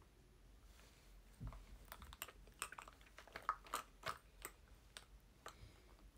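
Faint, irregular clicks and taps of small hard objects being handled on a desk.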